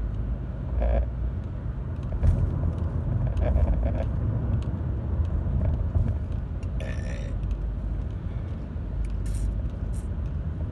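Steady low rumble of a car's engine and tyres heard from inside the moving car. A few brief, fainter sounds ride over it, the clearest about a second in and a hissy one about seven seconds in.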